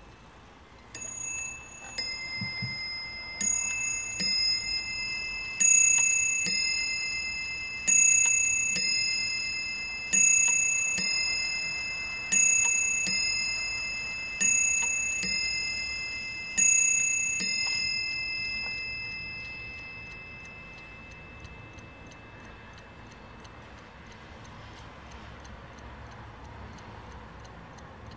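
Warmink 8-day mantel clock striking on its two bells: a run of two-note ding-dong strokes in pairs about two seconds apart for some seventeen seconds, each stroke ringing on, before the bells die away.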